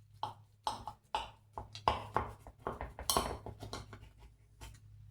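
Metal utensil clicking and scraping against a pie dish as a quiche is cut and a slice is lifted out: a quick irregular run of short clicks and scrapes, with a steady low hum underneath.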